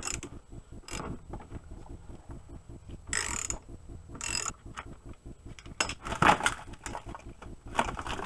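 Ratchet wrench clicking rapidly and evenly as 10 mm bolts are backed out, with a few louder clatters in between.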